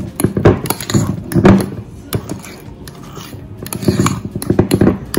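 A fork whipping mashed potato in a glass bowl, in irregular strokes with clicks of the metal against the glass.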